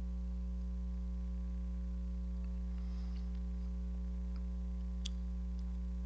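Steady electrical mains hum, with a faint click about five seconds in.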